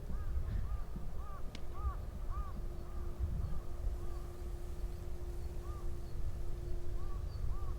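A flock of birds calling over and over in short arched notes, some overlapping, over a low rumble and a steady hum. A single sharp tick sounds about a second and a half in.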